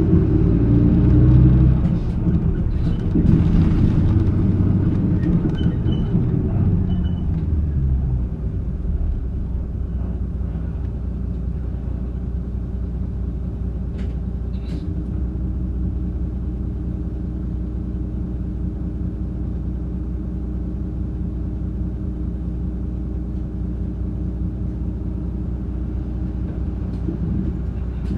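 Mitsubishi Fuso Aero Midi (PA-MK27FH) diesel bus heard from inside the cabin while running. The engine works harder and changes for the first several seconds, then settles into a steady, lower hum from about eight seconds in. Two sharp clicks come around the middle.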